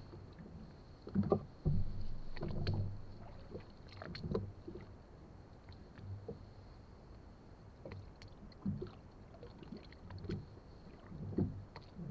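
Small inflatable boat drifting with its motor off: irregular soft low thumps and a few sharper knocks, from water lapping at the hull and hands working the fishing tackle. A faint steady high whine sits underneath.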